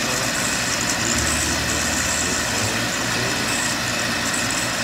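Atlas 9-inch metal lathe running on its old AC motor, turning a metal pulley blank while the cutting tool takes a cut: a steady running noise with a low hum and a high hiss.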